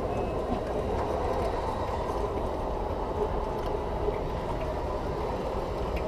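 Radio-controlled model Caterpillar 740 articulated dump truck driving: a steady mechanical running sound from its motor and drivetrain.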